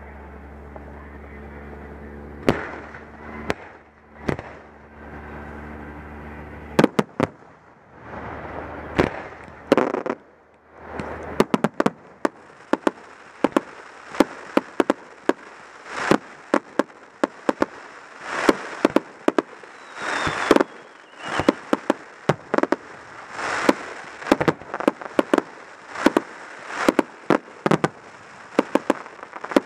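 Aerial fireworks display: a few scattered bangs over a low steady hum, then from about seven seconds in a dense, quickening barrage of sharp shell bursts and crackles. The hum stops about seven seconds in.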